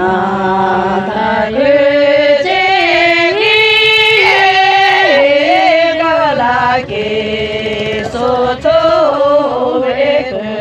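Voices singing together in a slow, chant-like melody, holding long notes that step up and down in pitch.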